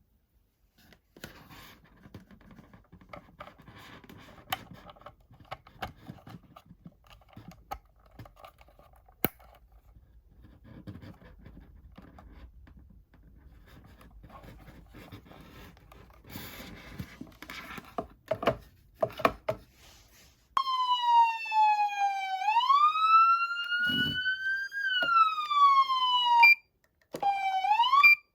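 Federal Signal Smart Siren Platinum SSP2000B siren amplifier sounding a wailing siren tone that starts about two-thirds of the way in. Its pitch slides down, climbs, falls again, breaks off for a moment, then starts rising again near the end. Before the siren there are only faint clicks and rustling.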